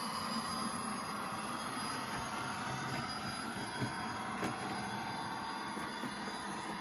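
Sound-fitted 00 gauge model locomotive running, its DCC sound decoder playing a steady locomotive engine sound through the model's small speaker, with two faint clicks around the middle.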